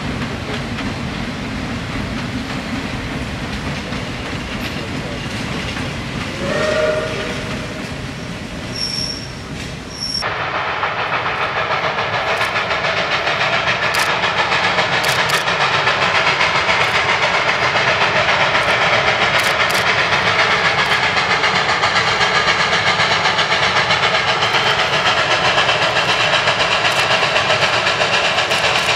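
Freight cars rolling past with a steady rumble, a short whistle note sounding about six seconds in. After an abrupt cut about ten seconds in, a 2-8-0 steam locomotive works hard toward the listener, its exhaust beating in a steady rapid rhythm that grows slightly louder.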